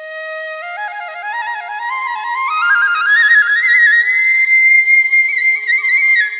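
Background music: a solo flute melody that climbs note by note from low to high with quick ornaments, then holds a long, wavering high note before cutting off.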